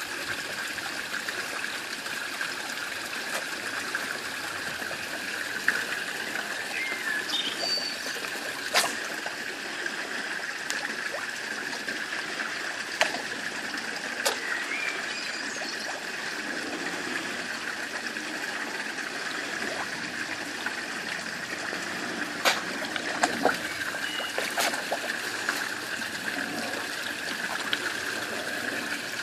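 Water trickling steadily into a pond, with scattered sharp slaps and pops at the surface as sturgeon and carp take floating food pellets.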